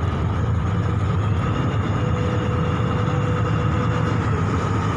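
A car ferry's engine running steadily as the boat gets under way and moves slowly ahead: a low, even drone with a faint steady whine above it.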